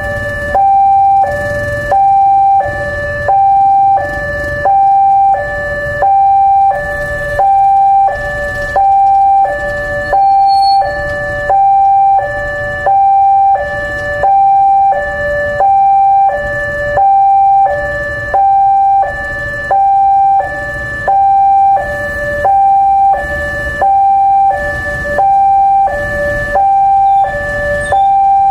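Railway level-crossing warning siren sounding continuously in a loud two-tone hi-lo pattern, alternating between a higher and a lower tone a little under a second each, the alarm that a train is coming through the crossing.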